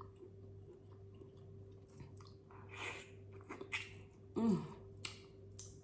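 Close-miked eating: mouth sounds of chewing and smacking on seafood boil, in short irregular bursts, with a brief falling vocal "mm" about four and a half seconds in. A faint steady low hum sits underneath.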